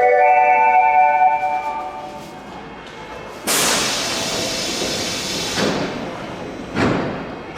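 A station platform melody, a short chime-like tune of clear pitched notes, fades out in the first two seconds. About three and a half seconds in, a sudden loud hiss of air from the train cuts in for about two seconds, with a shorter burst near the end.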